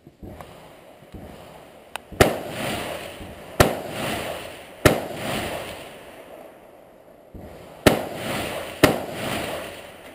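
Five rifle shots, each a sharp crack with a long echo under the covered firing line's roof. The first three come about a second and a half apart, then after a pause of about three seconds two more follow a second apart.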